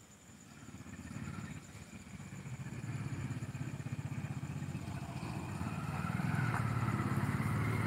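A motor vehicle engine running with a fast low pulse, growing steadily louder over several seconds.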